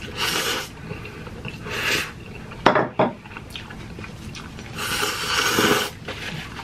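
Ramen noodles being slurped in three long, hissy draws, the last lasting about a second. A couple of sharp clicks of utensils on the dishes come about three seconds in.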